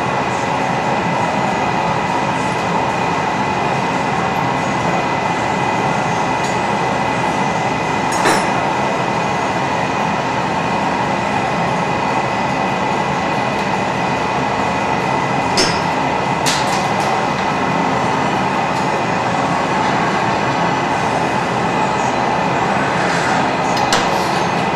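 A glassblowing hot shop's gas burners and blowers running with a steady rushing noise and a faint high whistle. A few brief clinks of metal or glass are heard, about a third of the way in, twice past the middle, and near the end.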